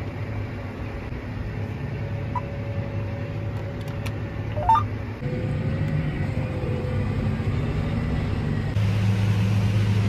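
John Deere 8235R tractor's diesel engine running steadily, heard from inside the cab, with a short rising chirp about halfway through. The hum shifts in pitch and level at about five and nine seconds.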